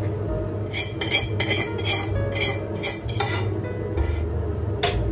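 Chopsticks scraping and tapping against a wok as noodles are served out into a bowl: a run of quick clinks over the first three seconds, then one more near the end.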